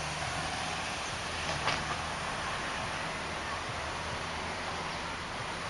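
Steady background noise: an even hiss with a low hum beneath it, and one light click about one and a half seconds in.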